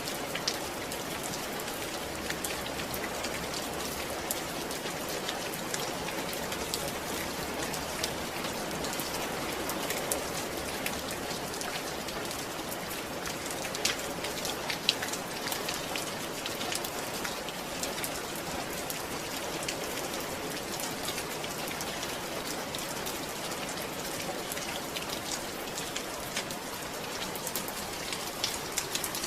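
Steady rain falling, an even hiss with many individual drops pattering and a few louder drop strikes scattered through.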